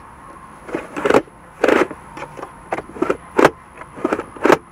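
Aftermarket centre armrest lid being slid back and forth on its adjustment, giving a series of short, sharp clicks and clunks, several a second apart.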